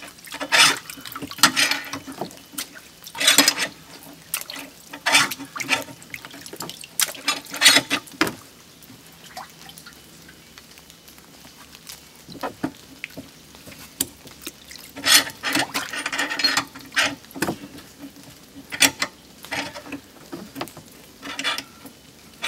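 Muddy puddle water splashing in irregular short bursts, stirred by a hand cranking a car's scissor jack at the water's surface.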